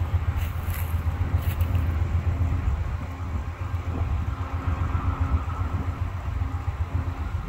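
Amtrak passenger cars rolling past on the rails: a steady low rumble of wheels on track, with a few sharp clicks in the first second or so.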